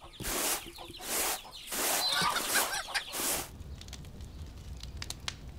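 Chickens clucking, with about five short loud calls in the first three and a half seconds, then a quieter stretch with a low hum and a few faint clicks.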